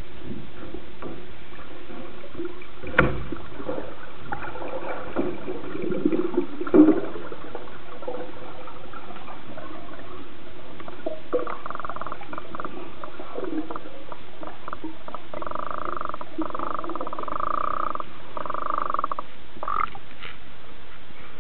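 Underwater sound inside a deep diving tank, picked up by the camera: a steady hiss with scattered clicks and knocks. A run of pitched sounds comes in the last third, then a few sharper clicks as the camera nears the surface.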